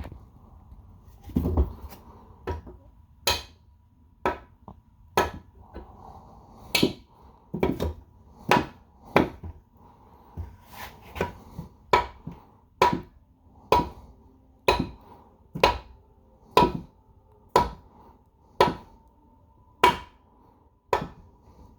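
Wooden mallet striking repeatedly, about one blow a second, about twenty in all, driving a shaft into the cluster gear of a 1960 Ford three-speed transmission.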